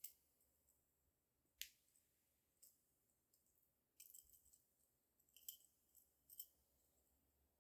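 Faint, sharp clicks and small metallic ticks of jewelry-making tools and brass parts being handled, spaced a second or so apart, with a brief flurry about four seconds in.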